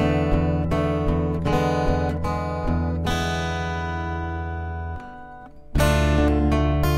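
Acoustic guitar music, picked and strummed chords. About three seconds in a chord is left ringing and slowly fades, with a short lull about five seconds in before the playing picks up again.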